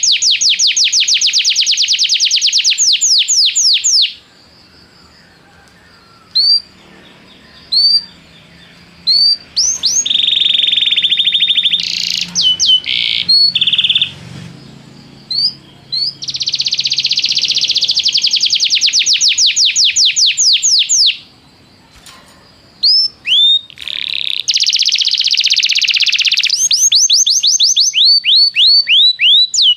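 Canary singing: long, fast trills of rapidly repeated high notes alternating with single rising chirps, several trills in a row.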